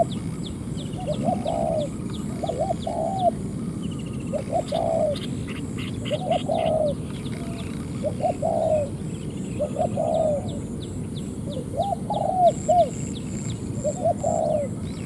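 Spotted doves cooing: a short, low cooing phrase repeated about every one to two seconds. Small birds chirp higher up over it, above a steady low background noise.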